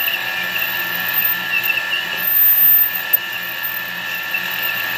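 Small lathe running with a steady motor whine while a cutter is fed by hand into an aluminum ring blank at a heavy 15-mark depth of cut. It gets louder for a moment around the middle, and there is one sharp click a little after three seconds.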